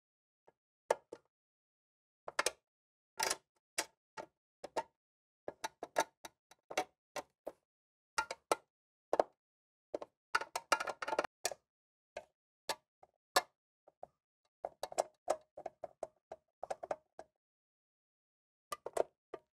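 Irregular clicks, taps and knocks of a screwdriver, screws and sheet-metal parts being handled while the frame of an RV air conditioner is screwed together, with a denser run of clicking about ten seconds in.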